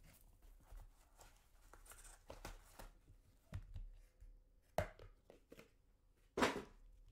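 Hands handling a card box and a clear plastic card holder: scattered light knocks and taps of plastic and cardboard against the table. The loudest come about five seconds in and again about six and a half seconds in.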